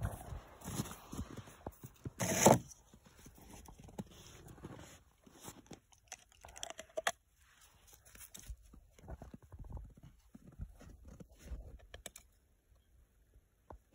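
Footsteps crunching in snow, with one loud crunch about two and a half seconds in, then scattered faint crunches and clicks that thin out towards the end.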